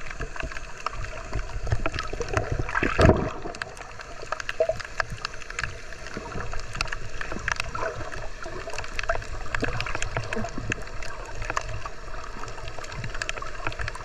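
Underwater sound picked up by a submerged camera: water moving with a low rumble, crossed by frequent sharp clicks and crackles, with a louder rush of water about three seconds in.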